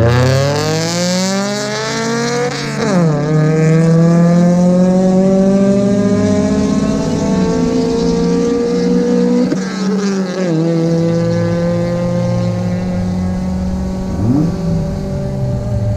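Two drag-racing cars, a 10th-generation Honda Civic and a Toyota AE86, launching from the start line and accelerating hard down the strip. Their engines climb steadily in pitch, with an upshift about three seconds in and another about ten seconds in.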